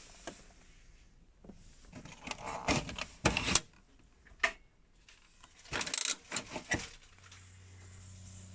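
Clicks, knocks and light rattles of hard fittings being handled, in two bursts a few seconds apart. A low steady hum sets in near the end.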